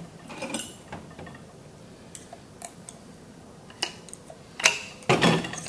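Scattered sharp metallic clicks and clinks of stainless steel pump parts handled and worked with a small hand tool during the teardown of a pneumatic chemical injection pump. There are half a dozen or so, and the loudest is a short clatter near the end.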